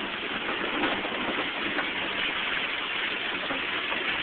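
Amusement-park tracked ride car running along, a steady engine and road noise.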